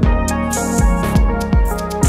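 Background music with electronic drums: a kick drum beats about every half second under sustained pitched tones.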